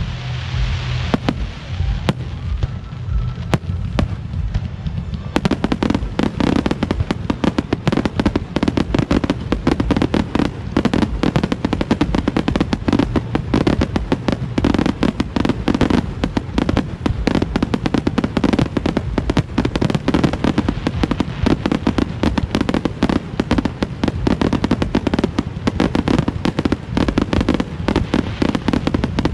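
Fireworks display: aerial shells bursting in rapid succession, many reports overlapping into a near-continuous barrage that grows denser about five seconds in.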